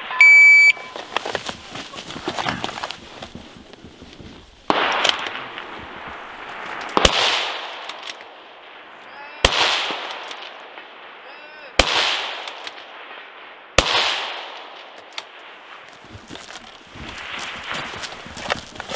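A shot timer beeps once to start the stage. Four precision rifle shots follow, about two to two and a half seconds apart, each trailing off in a long echo. Near the end come footsteps running through grass.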